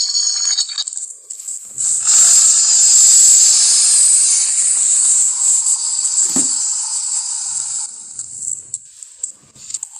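Film monster sound effect: a long, high-pitched hissing rasp starting about two seconds in and fading out around eight seconds, with a brief low thump partway through.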